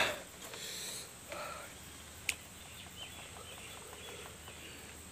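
A person sniffing and drawing sharp, hissing breaths through the mouth against the burn of hot chilies, with a runny nose from the heat. A single sharp click comes a little after two seconds in.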